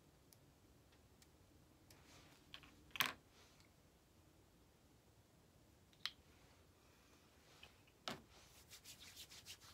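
Faint handling of a hand cream tube and its packaging: a few small clicks, the sharpest about three seconds in, then light rubbing and tapping near the end.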